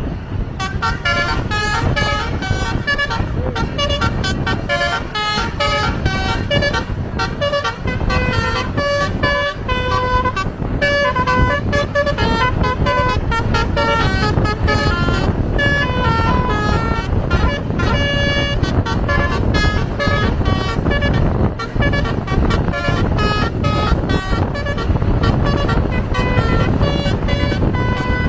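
Telolet basuri multi-tone horn playing a fast melody of short notes that step up and down in pitch, without pause, over a steady low rumble.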